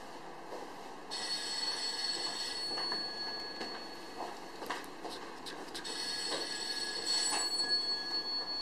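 A steady, high-pitched ringing tone, like a phone ringing, sounds in two spells of about two and three seconds. A few light clicks come between and under it.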